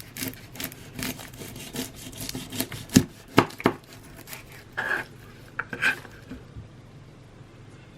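Kitchen handling noise during garlic prep: irregular rubbing and scraping, with three sharp knocks about three seconds in, then quiet for the last two seconds.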